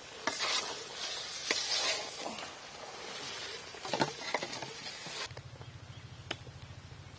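Long-handled perforated metal ladle stirring chicken chilli curry in a large metal pot, scraping and knocking against the pot while the hot curry sizzles. About five seconds in, this gives way to a quieter low, evenly pulsing hum.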